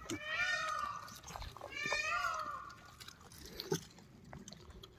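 Gray langurs giving high, whining squeals: two arching calls in the first half. A single sharp click near the four-second mark.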